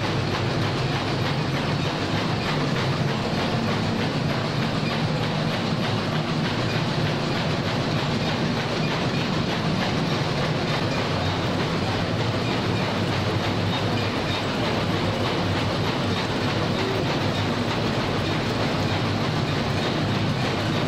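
Tea-sorting machinery running in a factory: conveyor belts and sifting and sorting drums make a steady, dense mechanical noise that does not let up.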